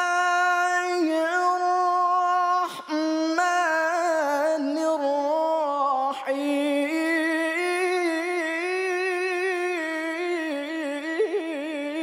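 A male Qur'an reciter's voice in melodic tilawah, holding long, ornamented notes that waver up and down in pitch, with two short breaks for breath about two and a half and six seconds in.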